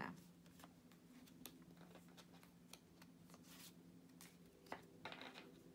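Near silence: faint handling of tarot cards, a few soft clicks and rustles, over a steady low hum.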